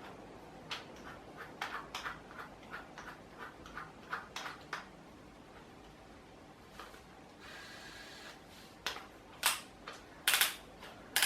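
Irregular small clicks and taps of a drill being handled as a snipped-off panel pin is fitted into its chuck to serve as a makeshift drill bit, with a few louder clicks near the end.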